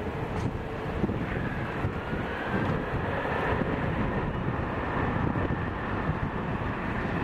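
Airbus A330-300 airliner's twin jet engines at high power on the takeoff roll: a steady, broad rumble with a faint high whine over it, growing slightly louder partway through.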